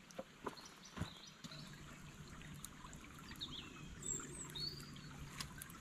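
Shallow forest stream trickling over stones, with a bird calling a few times in short whistled notes near the middle. A few sharp clicks stand out, the loudest about a second in.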